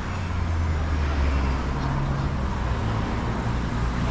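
Low, steady engine rumble of a motor vehicle running close by.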